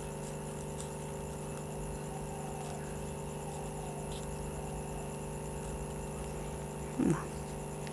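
Faint snips of small scissors cutting folded crepe paper, a few soft clicks over a steady background hum. A brief vocal sound near the end.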